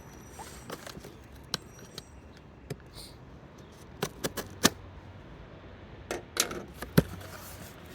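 Cardboard shipping box and packing being handled as it is opened: scattered sharp clicks and taps, the loudest about four and a half and seven seconds in.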